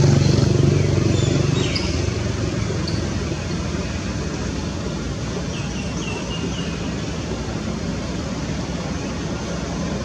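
A motor vehicle engine running steadily, fading out about two seconds in, then a steady outdoor rumble like distant traffic. A few faint high chirps come around the middle.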